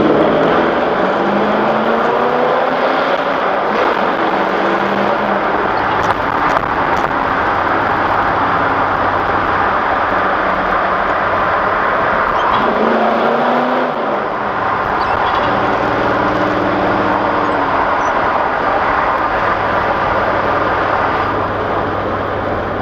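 Chevrolet 350 small-block V8 pulling hard in a road tunnel, its revs climbing at the start, dipping and climbing again about halfway through, then holding steady.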